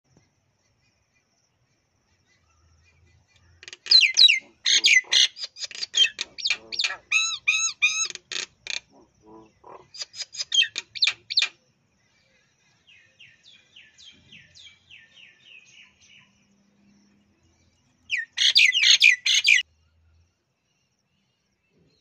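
Common mynas calling in loud bouts of rapid chattering, repeated high notes, with a softer run of notes between bouts.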